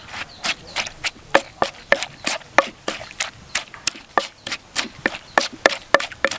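Wooden pestle pounding steadily in a clay mortar, about three knocks a second, crushing chilies, peanuts, garlic and lime for a papaya salad dressing.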